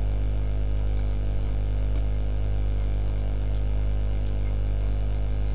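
Steady electrical mains hum in the recording, with a few faint clicks, typical of a computer mouse, between about three and five seconds in.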